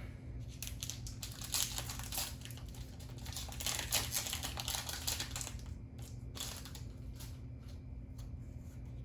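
Foil booster pack wrapper crinkling and tearing as the pack is opened by hand. The crackle is dense for about the first five seconds, then gives way to a few lighter rustles and clicks.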